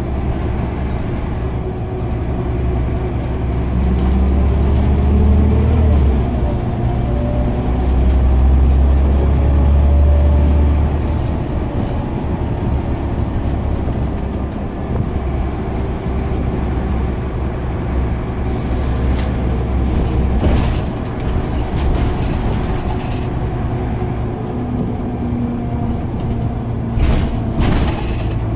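Scania OmniCity single-deck bus on the move, heard from inside the saloon: a steady low diesel engine rumble that swells twice as the bus pulls harder in the first half, then settles. A few short knocks and rattles come near the end.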